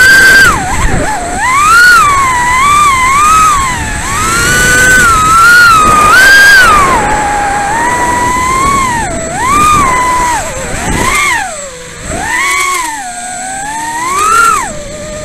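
Brushless motors and Gemfan 2540 props of a Leader 120 racing quadcopter on a 3S battery whining, picked up by the onboard camera's microphone. The pitch and loudness rise and fall constantly with throttle.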